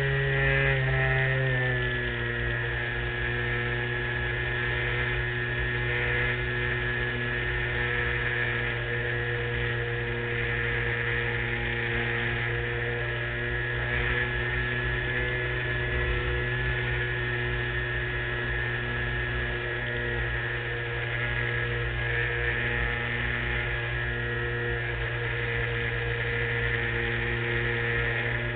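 LazyBee RC model plane's motor and propeller droning steadily in flight, heard from a camera mounted on the wing. The pitch drops a little about two seconds in and then holds level.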